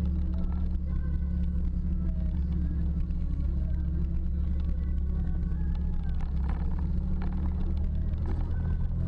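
Jeep engine and drivetrain running with a steady low drone while the Jeep crawls along a rough dirt trail, heard from inside the cab.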